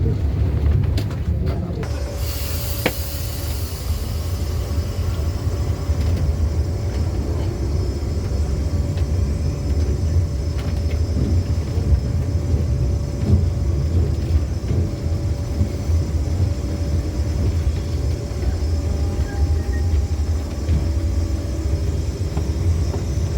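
Lisbon tram running on its rails: a steady low rumble with a constant whine joining about two seconds in.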